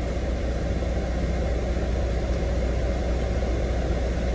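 Steady low rumble of a semi-truck's diesel engine idling, heard from inside the cab.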